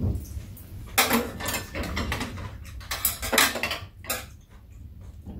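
Metal chopsticks and a spoon clinking against bowls, a frying pan and a metal tray while eating. The clatters come in scattered clusters about a second in, around three seconds, and once more near four seconds.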